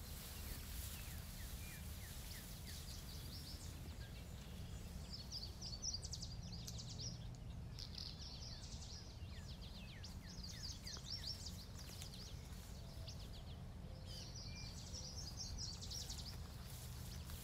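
A small songbird singing short, rapid trilled phrases, repeated every few seconds, over a steady low rumble.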